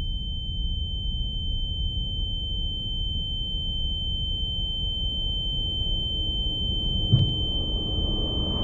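A steady, high-pitched ringing tone over a low rumble: the film sound effect of ringing ears just after a gunshot. A brief click about seven seconds in.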